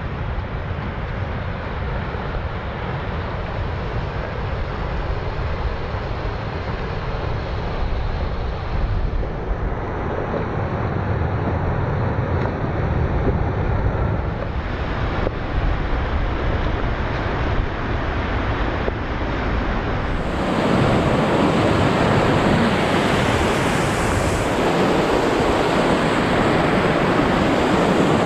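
Wind buffeting the microphone, with water rushing underneath. From about twenty seconds in, the steady rush of a rocky mountain stream grows loud and fills out as the footbridge over it is reached.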